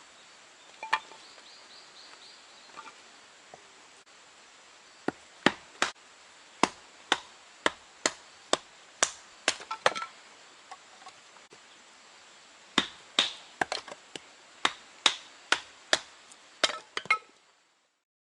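Firewood being chopped for a campfire: a blade strikes wood in two runs of sharp, ringing blows, about two a second, with a short pause between the runs.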